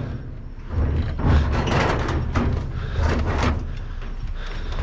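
Scrap appliances being shifted and stacked on a truck bed: low scraping and rumbling with repeated knocks and clatters of metal, starting about a second in.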